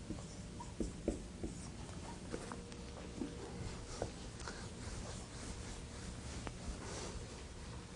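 Handwriting with a writing tool, squeaking and tapping against the writing surface. There is a cluster of short squeaks in the first second and a half, a few more around two and four seconds in, then fainter scratching.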